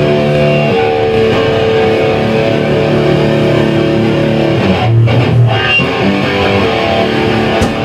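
Amplified electric guitars playing held, ringing chords, with bass underneath, changing chord about a second in and again around the middle.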